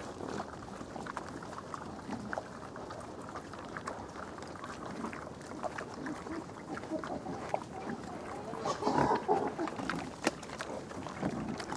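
Wild boars crunching acorns and snuffling as they root in the soil, with many small cracking clicks and low grunts, louder about nine seconds in.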